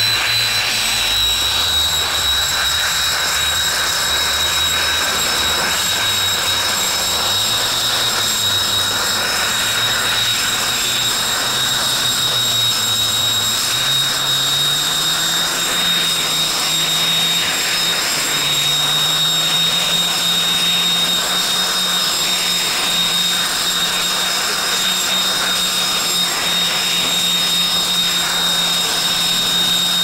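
Twin turbofan engines of a Kawasaki T-4 jet trainer running at ground idle: a steady high whine, with a low hum that rises in pitch about halfway through and then holds.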